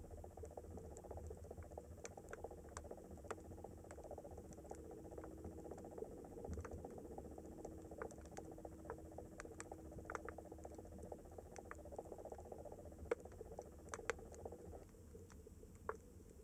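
Faint underwater ambience: irregular sharp clicks and crackles over a low steady hum. The hum thins out near the end.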